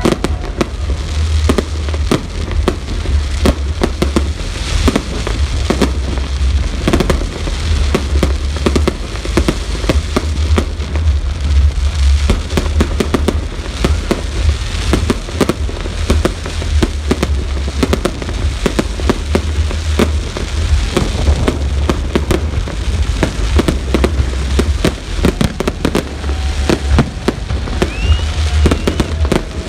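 Fireworks display: a dense, unbroken run of bangs and crackles over a heavy low rumble.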